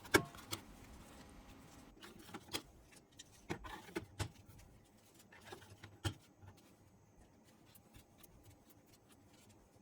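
Hard-drive trays of a Synology DS923+ NAS being slid back into their bays: scattered plastic clicks and knocks, the loudest in the first six seconds, then only faint ticks.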